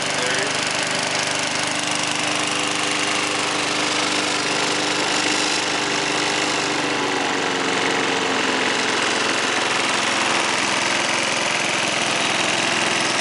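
Briggs and Stratton single-cylinder four-stroke mower engine on a Masport rear roller lawnmower, running steadily on its first start of the day. The engine note shifts a few seconds in, as the throttle lever on the handle is moved, then holds steady.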